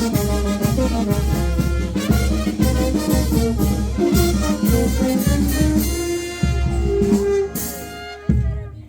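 Upbeat dance music with brass and a steady thumping bass beat. Near the end it closes on a held chord, then a last short hit dies away.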